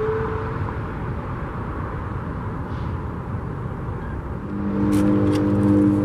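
A distant Alertus HPSA-1200 siren finishes a rising whoop tone in the first half second, turned down low for the test, over a steady noise haze like traffic. Near the end a louder sound of several steady pitched tones breaking on and off comes in, with a few clicks.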